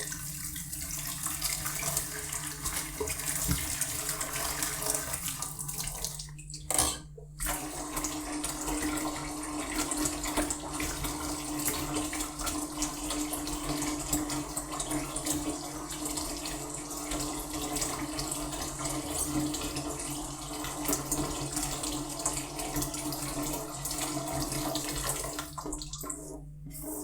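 Tap water running steadily into a kitchen sink during dishwashing, with a steady low tone under the rush. The flow breaks off briefly about seven seconds in, with a sharp knock, then runs on and thins near the end.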